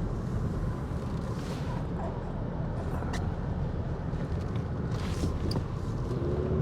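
Gusty wind rumbling on a roof-mounted camera's microphone over the steady road and engine noise of a car driving along, with a few faint clicks.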